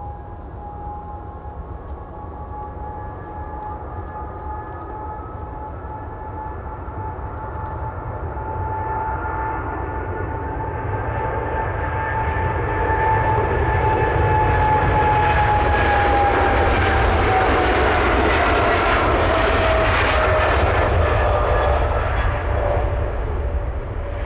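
Boeing 777-300ER's twin GE90-115B turbofans at takeoff thrust: a jet roar with a steady whine that builds as the airliner passes. It is loudest in the second half, and the whine drops in pitch near the end as the aircraft moves away.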